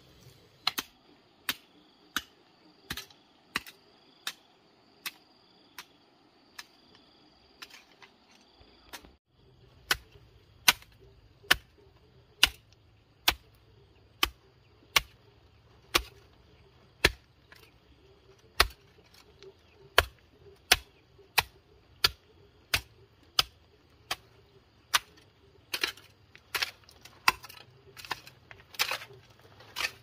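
Repeated sharp strikes of a hand tool, about three every two seconds, coming faster and less evenly near the end. A low steady hum joins in about nine seconds in.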